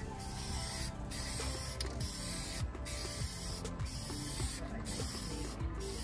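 Spray paint hissing in back-and-forth passes, cutting off briefly about once a second between strokes.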